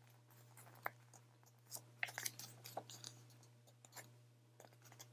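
Faint crinkling and a few small clicks of a glossy paper magazine being handled and its page turned, over a steady low hum.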